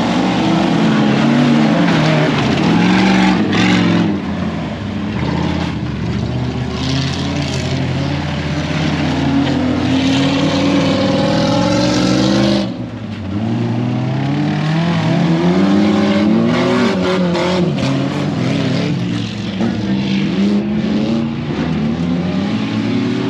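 Off-road truck engines revving hard, the pitch rising and falling again and again as they accelerate and back off, with a short drop in level about thirteen seconds in.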